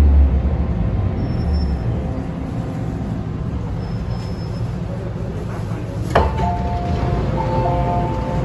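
MTR M-train electric multiple unit running, a steady low rumble at first. About six seconds in there is a sharp click, then a few high steady tones come and go.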